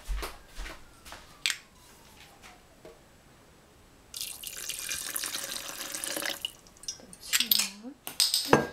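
Liquid poured from a glass bottle into a plastic blender cup: a steady splashing pour from about four seconds in, lasting about two and a half seconds. Sharp knocks near the end.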